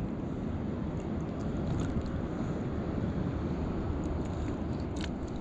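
Steady rush of wind on the microphone over sea water lapping around floating fishermen, with a few faint ticks.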